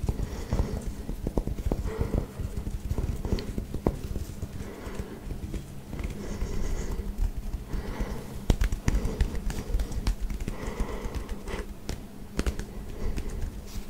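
Fingertips scratching and rubbing short buzz-cut hair close to the microphone: a dense crackling rustle with many sharp clicks, coming in waves as the hands move over the scalp.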